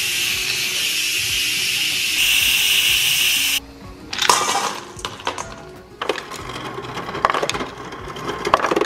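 Instant Pot pressure-release valve venting steam with a loud, steady hiss that cuts off suddenly about three and a half seconds in. Then ice cubes clatter into a stainless steel bowl, and near the end ice drops from a refrigerator dispenser into a glass measuring cup.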